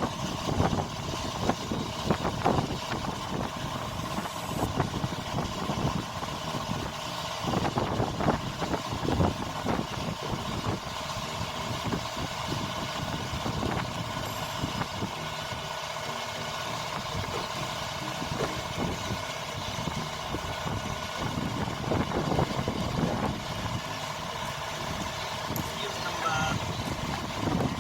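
Steady background hum of a running engine or machine, with irregular clicks and knocks of engine bay parts being handled and fitted back together.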